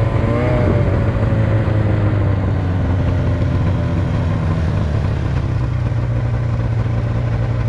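Snowmobile engine running steadily at low speed, heard close up from the rider's seat, its pitch shifting briefly in the first couple of seconds before settling.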